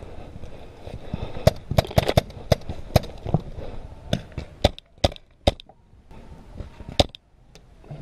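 Paintball markers firing: about a dozen sharp, unevenly spaced shots, some loud and close, others fainter, thinning out after about five seconds with a last loud shot near the end.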